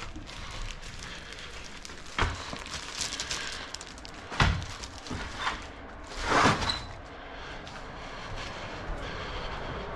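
Three separate knocks or thumps, about two seconds apart, the last the loudest, over a steady background hiss.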